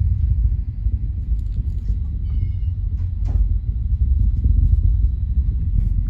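Distant rumble of a SpaceX Falcon 9 rocket launch: a continuous low roar from its nine Merlin first-stage engines, wavering unevenly in loudness.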